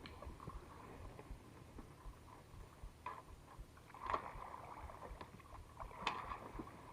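Faint water sloshing with a few brief splashes, about three, four and six seconds in.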